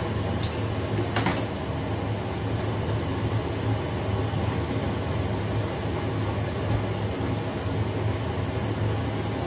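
Steady low mechanical hum, with a few sharp snips of kitchen scissors cutting vegetable stalks within the first second and a half.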